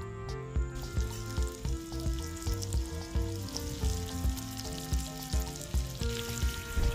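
Raw shrimp sizzling in hot melted butter in a frying pan as they are laid in one by one, the sizzle starting about a second in. Background music with a steady beat plays along.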